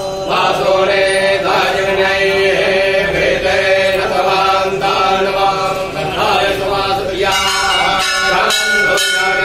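Priests chanting Sanskrit mantras over a steady held tone, with a hand bell ringing rapidly from about three-quarters of the way through.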